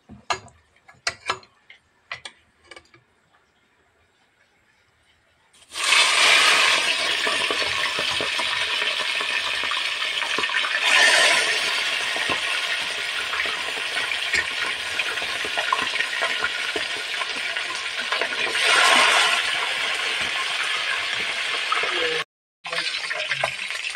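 A few metal clinks of a utensil against a steel bowl of raw fish heads, then about six seconds in a sudden loud sizzling as the fish heads go into hot oil in a steel kadai. The frying carries on steadily, swelling a few times, with a short dropout near the end.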